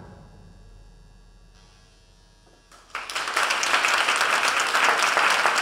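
A last low note rings out at the start and fades away; about three seconds in, the audience breaks into loud applause that keeps going.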